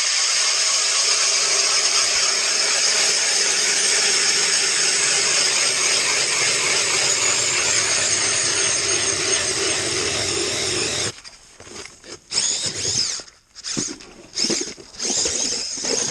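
Cordless drill driving a hand ice auger, boring steadily through thick ice for about eleven seconds, then stopping suddenly. A few short, irregular sounds follow.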